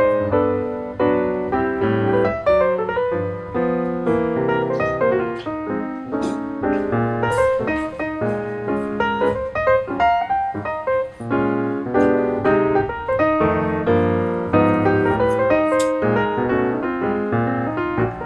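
Background piano music: a quick, steady stream of notes and chords.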